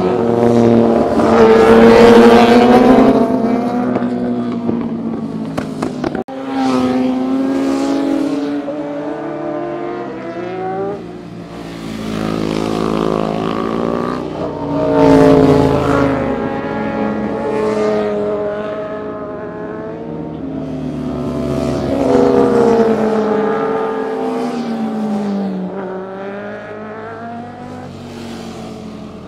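Sportbike engines passing close by one after another through a curve, each engine note rising and falling in pitch as it comes and goes. The loudest passes come about 2 seconds in, around the middle and about two-thirds through, with an abrupt break about 6 seconds in.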